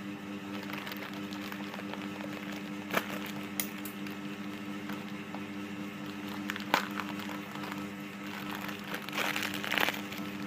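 Crinkling and handling noises from a homemade squishy being worked to poke a hole in its back, with a few sharp clicks and a burst of crinkling near the end, over a steady low hum.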